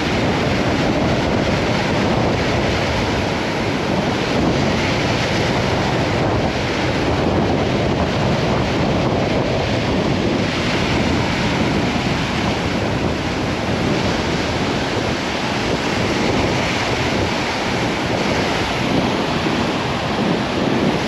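Small surf breaking and washing up a sand-and-shingle beach, with a steady wind buffeting the microphone.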